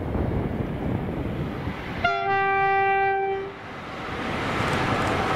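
Horn of a Class 90 electric locomotive heading a Freightliner container train: a brief higher note, then one steady lower note of about a second and a half. After it, the rumble of the approaching train on the rails builds steadily.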